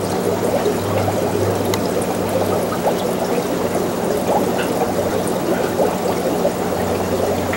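Aquarium water trickling and bubbling, with a steady low hum underneath, as from a running filter.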